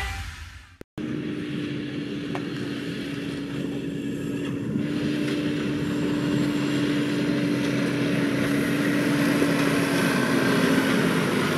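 Farm tractor's diesel engine running steadily as it pulls a loaded silage trailer over corn stubble, with a constant droning tone through it. It grows gradually louder as the tractor approaches.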